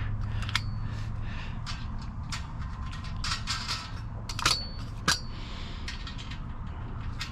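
Scattered metal clicks and clinks from tightening the nuts on the mounting bolts of a Wald 535 wire rear basket; a couple of the clinks ring briefly.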